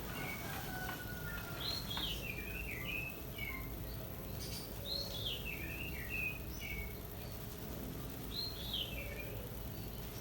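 A songbird singing the same short phrase three times, about two, five and eight and a half seconds in. Each phrase is a quick run of whistled notes stepping down from high to lower pitch, over a steady low background hum.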